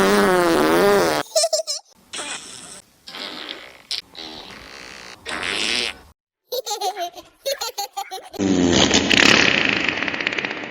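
A string of fart sound effects, one after another with short gaps between them: a wavering, pitched one first, several short ones, and a longer, louder one near the end.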